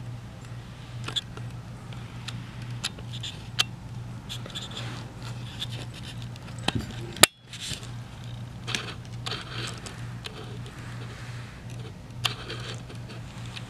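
Siamese kittens pawing and tugging at window blind cords: scattered light taps, rattles and scrapes over a steady low hum. One sharp click with a brief dropout about seven seconds in.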